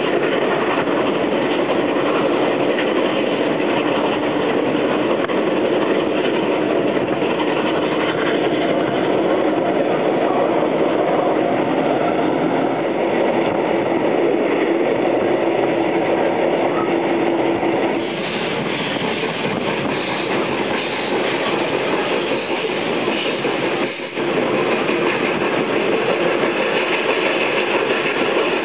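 Vintage passenger train running along the line, heard from inside a wooden carriage at its window: a steady rumble of wheels rolling on the rails with the rattle of the carriage. The sound eases a little about eighteen seconds in.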